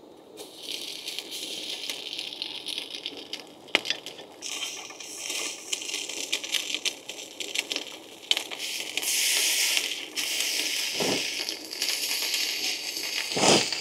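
Food sizzling in a frying pan over a fire, a steady hiss with scattered pops and clicks, growing louder around the middle.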